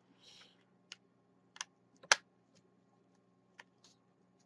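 Light plastic clicks and taps of an A4tech X7 computer mouse's shell and internal parts being handled and fitted back together: a brief rustle at the start, then about five separate clicks, the sharpest about two seconds in.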